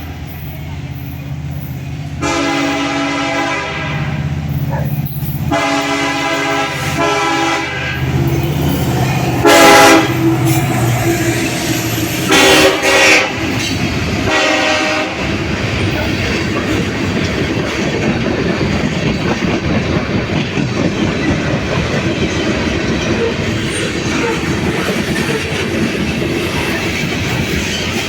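Diesel freight locomotive sounding its horn in a series of blasts over the engine's low drone, the two loudest about ten and thirteen seconds in. The horn then stops and the train's cars roll past with a steady rumble and the clickety-clack of wheels over the rail joints.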